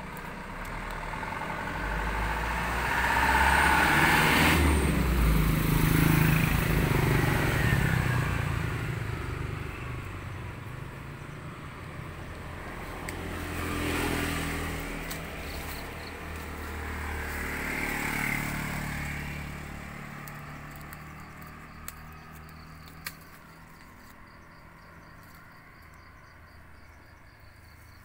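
A motor vehicle's engine passing by, swelling to its loudest a few seconds in and fading away. Two weaker swells follow as more engine noise passes, and then it dies down to quiet.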